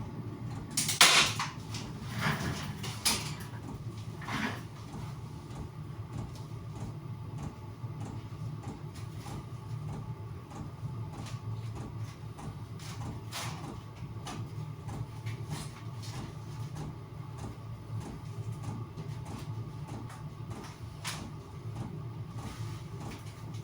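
A cluster of sharp knocks and clacks from hand work on the heater box's roof covering, starting about a second in and going on for a few seconds, with two more single knocks later. A steady low hum runs underneath.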